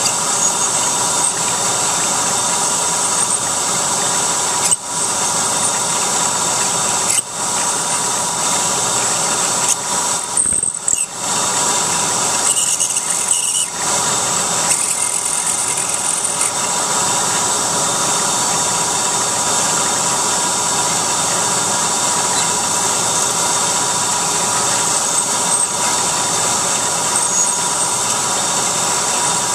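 CNC milling machine cutting aluminium with a small end mill under flood coolant: a steady, loud spindle whine with cutting noise, broken by a few brief dips in the first half.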